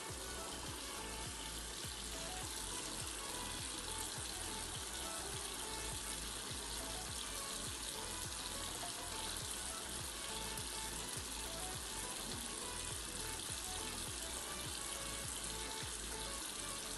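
Tap water running steadily into a sink as hands are washed, with soft background music.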